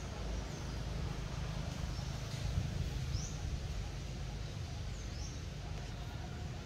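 Outdoor background: a steady low rumble with a faint hiss, and a few short high chirps spaced a second or two apart.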